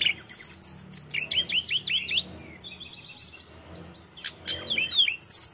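Hill blue flycatcher singing hard: a fast, varied run of high chirps, slurred whistles and trills, in loud bursts with a short lull about four seconds in.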